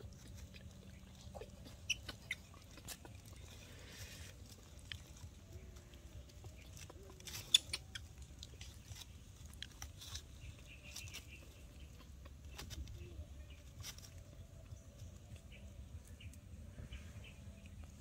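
Faint rustling and light scattered clicks of a baby monkey moving about on a lap and onto dry leaf litter, with one sharper click about seven and a half seconds in.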